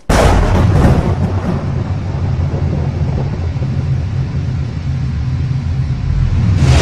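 Thunder sound effect: a sudden crash that settles into a steady, loud low rumble lasting several seconds.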